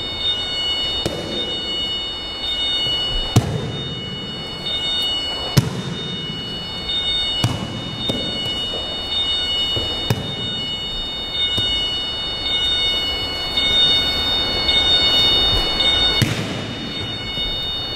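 Sharp slaps and thumps of aikido breakfalls on a matted floor, one about every two seconds as the partner is thrown again and again, with a short echo of a large hall. Background music with sustained notes runs underneath.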